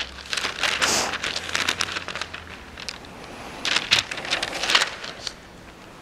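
Thin Bible pages being leafed through, the paper rustling and crackling in two spells: for about the first two seconds and again around four to five seconds in.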